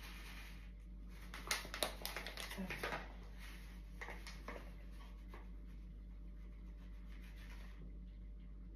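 Grated coconut being poured and shaken into a Thermomix bowl: a cluster of rustles and light taps lasting about a second and a half, then a few fainter ones a couple of seconds later, over a steady low hum.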